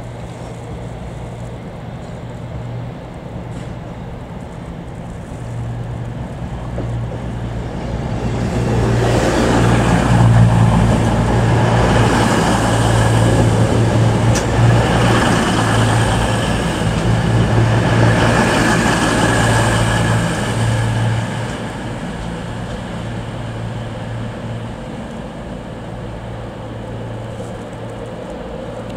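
A four-coach Class 220 Voyager diesel multiple unit running in, its underfloor Cummins diesel engines humming steadily. The sound swells about eight seconds in as the train runs past, then drops back to a steady drone after about twenty seconds as it slows to a stop.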